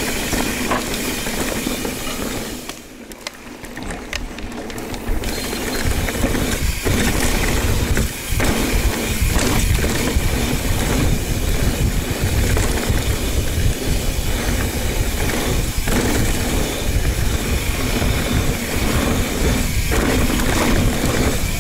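Mountain bike riding a dirt trail at speed: wind rushing over the microphone and the tyres rumbling over the ground, with occasional knocks. It drops quieter for a couple of seconds about three seconds in, then returns louder with a heavy low buffeting.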